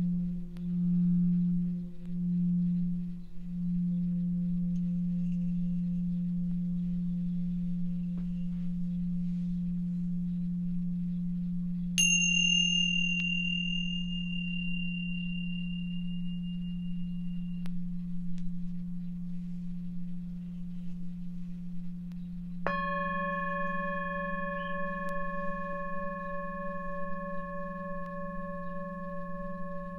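A low Tibetan singing bowl hums steadily, pulsing for the first few seconds as a wand is run round its rim, then ringing on. About twelve seconds in, a pair of tingsha cymbals is struck once and gives a clear high ring that lasts about six seconds. Near the end a second, higher bowl is struck with a mallet and rings on over the low one.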